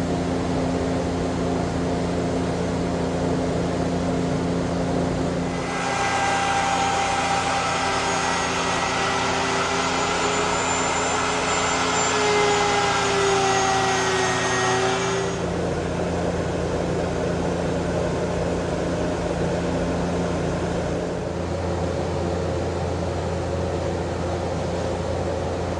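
Handheld router with a flush-trim bit running at high speed for about ten seconds, trimming walnut veneer flush with the edge of the plywood box; its whine dips slightly in pitch near the end of the cut. A steady machine hum continues underneath throughout.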